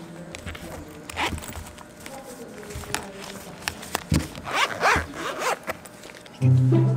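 A zipper on a zip-around wallet pulled open and closed in short rasps, briefly about a second in and again for about a second around the middle. Loud music comes in near the end.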